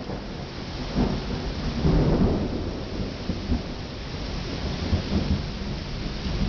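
Steady rain falling on trees and garden foliage, with low thunder rumbling that swells about one and two seconds in.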